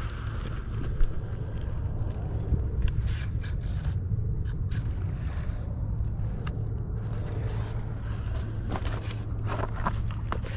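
Radio-controlled scale rock crawler climbing over rocks: tires and chassis scraping and clicking against the stone, with a sharper knock about a second in, over a steady low hum.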